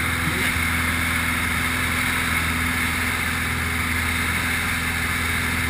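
Grob light aircraft's piston engine and propeller running at a steady drone, heard from inside the cockpit with airflow hiss.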